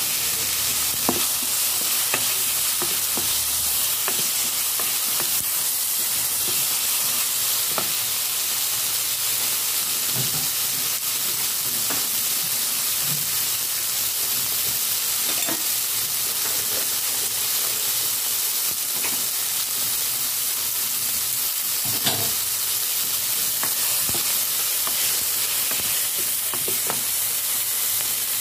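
Meat, bell pepper and tomato sizzling steadily in hot oil in a nonstick pot, stirred with a wooden spatula that scrapes and clicks against the pan now and then.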